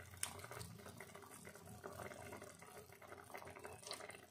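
Thick tomato gravy simmering in a pan, bubbling faintly with many small pops.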